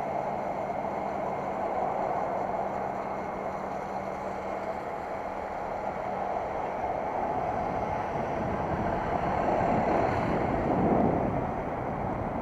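Wind rushing over a bicycle-mounted camera's microphone while riding, mixed with city traffic noise and a low engine hum that fades out about seven seconds in. The wind noise swells in gusts over the last few seconds.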